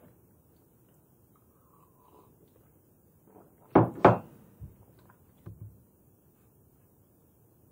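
Two sharp knocks or thumps in quick succession, about a third of a second apart, a little past the middle, with a few faint soft knocks around them.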